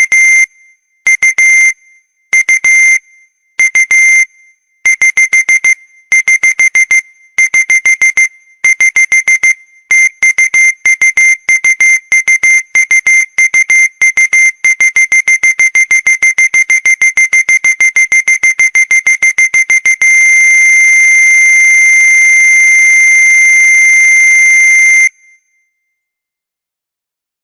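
Old-fashioned alarm bell ringing in rapid hammered strokes. It starts in short separate bursts that grow longer and closer together, then rings without a break for about five seconds before cutting off suddenly.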